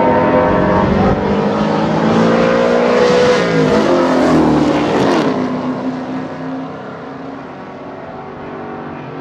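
Two V8 race cars, a Holden VH Commodore and a Rover SD1 with its 3.5-litre V8, passing close together under hard acceleration. The engine note rises for the first few seconds, drops in pitch as they go by, then fades as they pull away.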